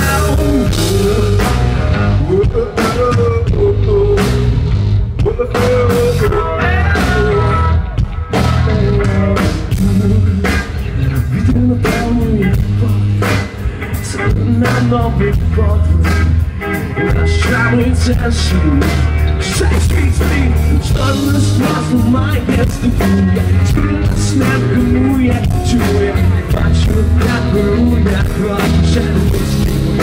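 Live rock band playing loud through a festival PA, heard from the crowd: drum kit, bass and electric guitars in a steady groove.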